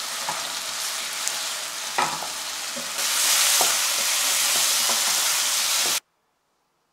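Chicken drumettes sizzling as they stir-fry in a soy-based sauce in a nonstick pan, with a few short knocks and scrapes of a wooden spatula. The sizzle gets louder about three seconds in and cuts off suddenly about six seconds in.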